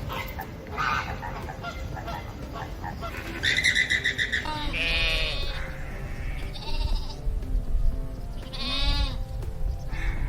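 Bleating of goats or sheep: about five loud, wavering calls, the first coming about three and a half seconds in after a stretch of fainter mixed sounds.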